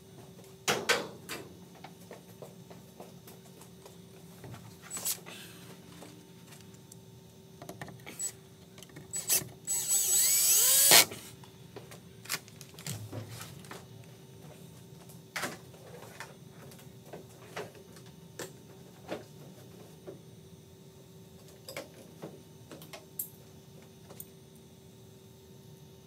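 Hand tools fastening screws on metal: scattered clicks, creaks and scrapes, with one louder rasping burst lasting about a second and a half near the middle.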